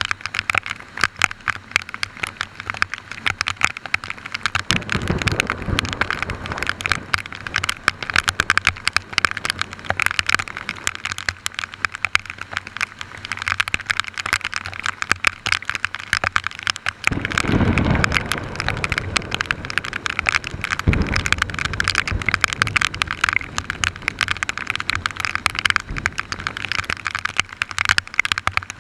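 Heavy tropical rain falling, with many drops striking close to the microphone as a dense crackle. Low thunder rumbles roll in about five seconds in, again longer and stronger around seventeen seconds, and briefly near twenty-one seconds.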